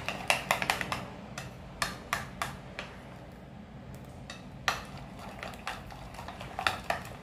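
Steel spoon stirring a thick gram-flour and rice-flour batter in a bowl, clicking against the bowl at an uneven pace, busiest in the first second.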